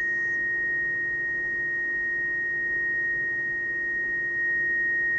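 Steady, unwavering beat tone from a ham radio receiver's speaker: a signal generator's continuous-wave test carrier on 40 meters, received as interference over band hiss, with a fainter lower tone beneath. The tone has not yet been nulled by the Anan 8000's diversity phasing and gain controls, and grows a little louder about four seconds in.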